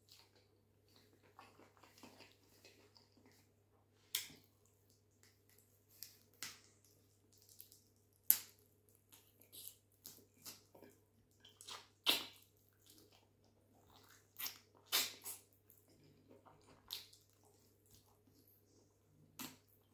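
Close-miked wet mouth sounds of eating chicken by hand: chewing, lip smacks and sucking the sauce off the fingers, in irregular sharp smacks with quiet gaps between.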